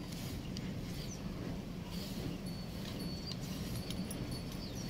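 Steady low outdoor rumble with small birds chirping briefly and high, now and then; under it the soft rustle of hands mixing a flour and coconut mix in a clay pot.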